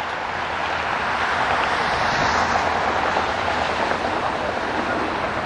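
Distant jet engine noise from a Boeing 777-300ER's GE90-115B turbofans on the runway: a steady rushing sound that swells slightly about two seconds in.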